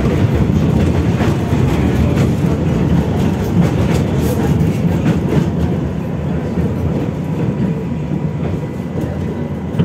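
Tatra T3E tram running along the track, heard from on board: a steady rail rumble with occasional clicks. The running noise drops somewhat about halfway through.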